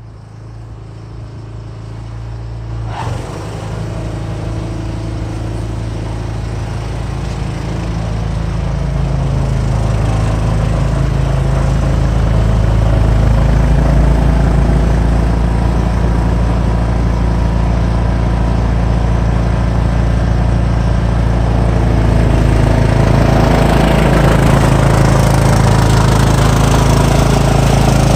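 Cub Cadet XT1 lawn tractor engine running with its three-stage snowblower attachment engaged, a steady engine hum that grows louder over the first ten seconds or so and then holds. From about two-thirds of the way in, a harsher rushing hiss joins it.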